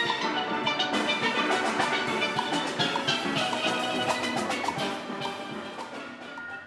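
Steel orchestra playing: many steelpans striking quick runs of ringing notes together in a fast tune.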